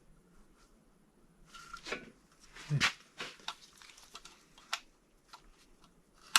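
Light clicks, taps and rustling from parts and tools being handled on an engine block, with a dull knock about three seconds in and a sharp click near the end.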